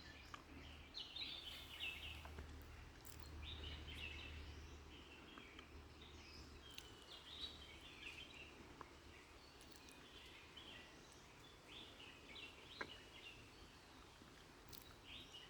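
Faint birdsong: small birds giving repeated short chirps and twittering calls over quiet outdoor background noise.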